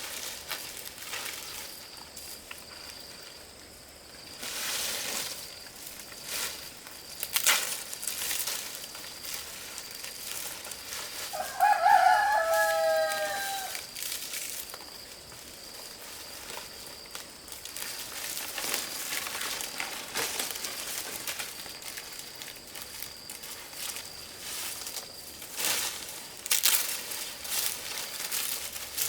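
A rooster crows once, a call of about two seconds that drops in pitch at the end, about twelve seconds in, with another crow starting at the very end. Scattered knocks and rustles of work sound around it, over a faint steady high-pitched whine.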